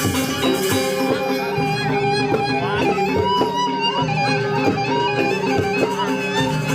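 Balinese traditional gamelan music, with many held ringing tones under a wavering melody line and occasional sharp struck accents.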